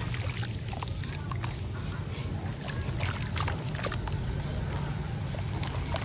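Hands squeezing and churning a slurry of crumbled sand and cement in a tub of water: wet sloshing and squelching with many small gritty crackles, over a steady low rumble.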